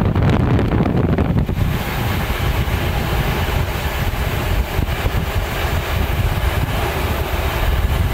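Train running at speed, heard from on board: a steady low rumble with wind buffeting the microphone. The hiss turns brighter about a second and a half in.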